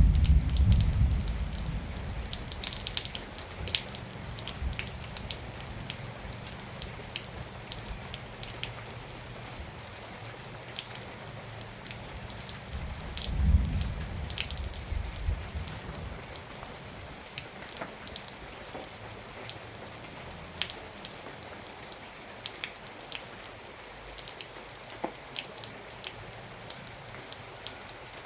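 Steady rain falling, with many distinct individual drops hitting close by. A low rumble swells at the start and again about halfway through.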